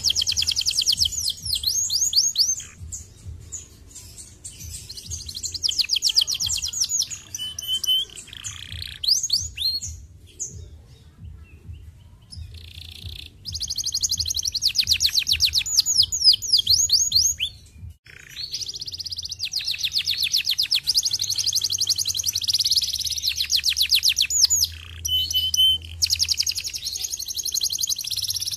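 Domestic canary singing: long runs of fast, evenly repeated trills, broken by short pauses and a quieter spell about ten seconds in, with a couple of brief steady whistled notes.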